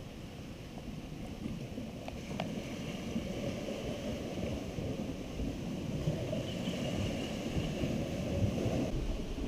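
Wind buffeting the microphone over the steady wash of ocean surf, with a couple of faint ticks about two seconds in.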